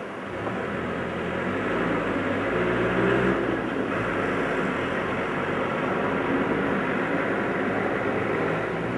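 N700-series Shinkansen bullet train approaching at speed: a rushing, rumbling running noise that grows louder over the first two or three seconds as the train nears, then holds steady.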